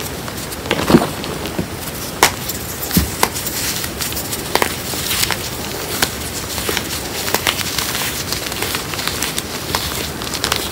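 Hands squeezing and crumbling chunks of reformed gym chalk mixed with cornstarch: a continuous crackling crunch with many sharp snaps, the loudest about a second in.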